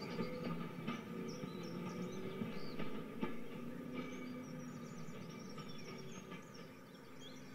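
Added recording of a full-size train running on the rails, a steady rumble with occasional clicks, fading away toward the end.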